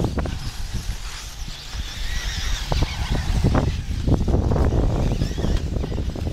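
1/8-scale electric off-road RC buggies racing on a dirt track, with a few sharp knocks between about two and a half and four seconds in, over a steady low rumble.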